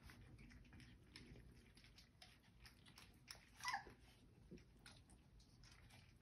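Four-week-old Old English Sheepdog puppies licking and chewing a snack out of a metal muffin tin: faint, irregular small smacks and clicks, with one short high squeak about halfway through.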